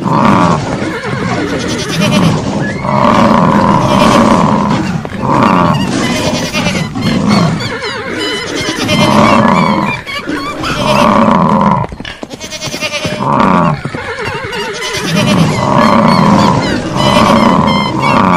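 Overlapping animal calls from a mix of livestock and wild animals, swelling and fading every second or two over a continuous rough noise.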